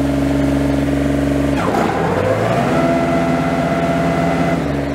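Kubota GR2120's three-cylinder diesel engine running at raised revs. About a second and a half in it bogs down in pitch under a sudden load and climbs back within a second, typical of the PTO engaging the mower deck. A steady higher whine then runs over the engine until shortly before the end.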